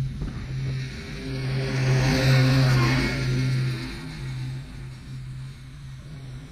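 An engine passes close by, swelling to a peak about two to three seconds in and then fading, over a steady low engine hum.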